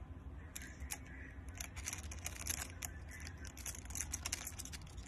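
Praying mantis chewing an insect, its jaws crunching through the shell in a quick, irregular run of faint crisp clicks that bunch up a couple of times. A steady low hum lies under it.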